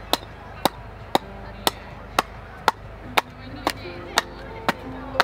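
Hatchet chopping down the edge of a split billet held on a log chopping block, roughing the blank round for a pole-lathe chair leg. Sharp, evenly spaced blows come about two a second.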